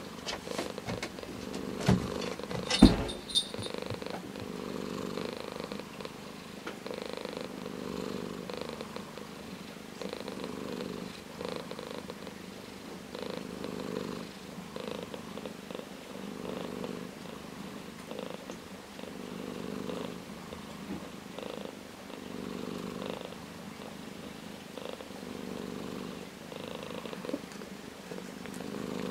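Orange tabby cat purring steadily, swelling and fading in a regular rhythm about every second and a half. Two sharp knocks come about two and three seconds in.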